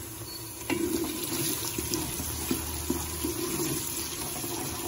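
Sliced onions frying in oil in a large aluminium pot, stirred with a wooden spoon: a steady sizzle with small crackles that starts suddenly about a second in.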